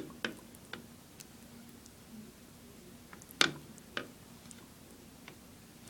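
A few faint, scattered clicks and small water splashes as a hand presses and moves an iPod touch lying under shallow water in a basin. The loudest click comes about three and a half seconds in.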